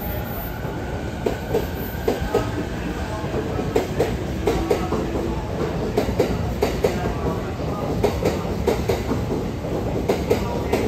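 JR East E261 series Saphir Odoriko electric express train rolling slowly into the station, its wheels clacking over rail joints in a steady run of sharp clicks over a low rumble.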